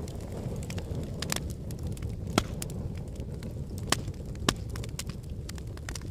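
Fireplace fire crackling over a steady low rumble, with irregular sharp pops, three of them louder: about two and a half seconds in, near four seconds and a half-second later.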